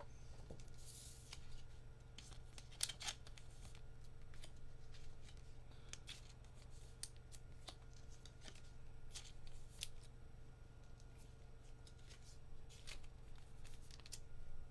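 Trading cards and their packaging being handled: scattered soft clicks, taps and short scrapes, with a brief crinkle about a second in, over a low steady hum.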